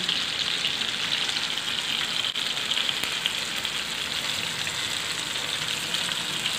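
Masala-coated fish steaks shallow-frying in hot oil in a nonstick pan: a steady, crackling sizzle. The steaks are frying on their second side, with both sides nearly cooked.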